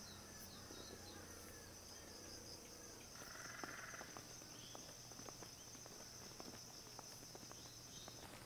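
Faint outdoor ambience dominated by a steady, high-pitched insect trill, with scattered short bird chirps and a brief buzzy call about three seconds in.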